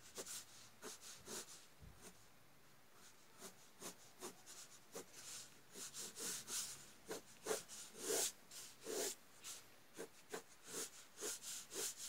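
Pencil point scratching across drawing paper in short, quick sketching strokes, several a second, with a brief pause about two seconds in.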